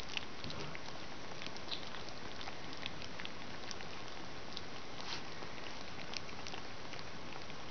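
Collie puppies eating their first solid food from a shared dish: scattered small wet smacking and lapping clicks, irregular, over a steady background hiss.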